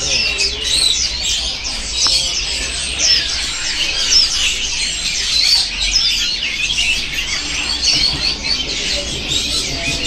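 Many small caged songbirds chirping at once, a constant overlapping chatter of short high calls.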